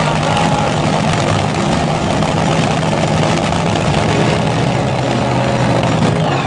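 A large vehicle engine idling steadily.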